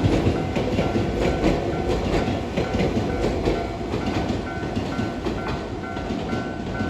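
Keisei train passing over a level crossing, its wheels clacking irregularly over the rail joints with a steady rumble. A Japanese level-crossing alarm rings a repeating electronic tone above it.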